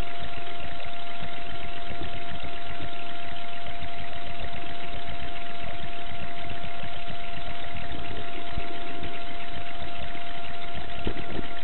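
A steady mechanical drone like a running engine, with a constant hum held at one pitch over it and no change in speed.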